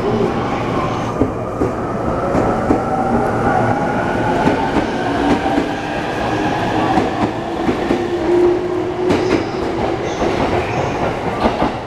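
Electric commuter train moving along the platform: steel wheels clacking over rail joints, under a motor whine that shifts slowly in pitch.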